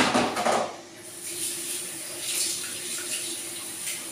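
Dirty cleaning water tipped out of a basin into a kitchen sink, a sudden gush that lasts about a second, followed by lighter splashing and clattering at the sink.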